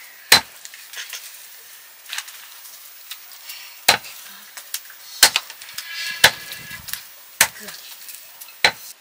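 Cooking sounds: about six sharp knocks, irregularly spaced a second or so apart, over a faint sizzling hiss, as of a utensil or blade striking a pot or chopping board.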